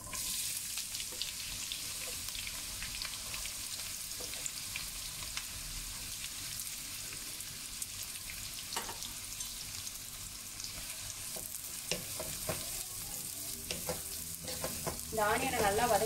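Sliced onions sizzling in hot peanut oil and ghee in a wok. The frying starts abruptly as they go in and holds steady, with scattered small crackles. Near the end a wooden spatula stirs them.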